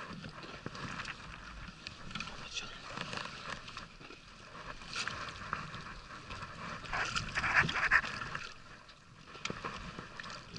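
Handling noise of a jigging rod and reel on an inflatable rubber boat: scattered knocks and rustles over water sounds against the boat, with a louder stretch about seven seconds in.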